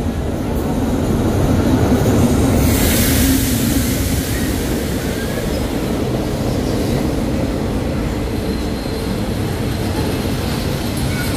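Diesel-hauled passenger train pulling into the station alongside the platform: a steady low rumble of the locomotive and rolling coaches. A rush of hissing comes about three seconds in, and faint thin wheel squeals follow later.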